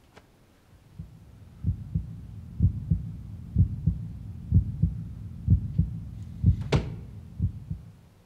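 Slow heartbeat sound effect: paired low lub-dub thumps about once a second. It starts about a second in and fades near the end. A sharp hit lands on one beat late on and is the loudest moment.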